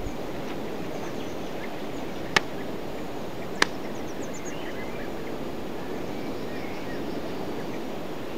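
Steady outdoor background noise with two sharp clicks about a second apart, and a few faint bird chirps after them.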